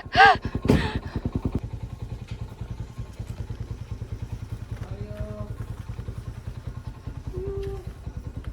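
Philippine tricycle's motorcycle engine running at a steady, fast pulse while carrying two passengers, heard from the sidecar. A voice is heard briefly in the first second.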